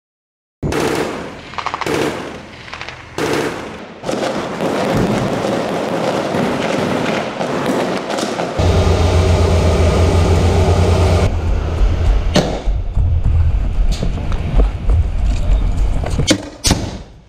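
Combat sound cutting abruptly between short takes: gunfire and blasts, a stretch of heavy low rumble midway, and sharp single shots near the end.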